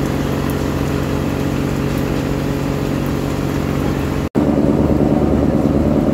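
Diesel engine of a moored wooden Amazon riverboat running steadily at idle, a loud even hum. It drops out for a moment about four seconds in and comes back louder.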